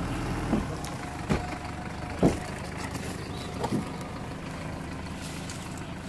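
Steady low rumble of a vehicle engine running, with four sharp knocks over the first four seconds, the loudest a little after two seconds in.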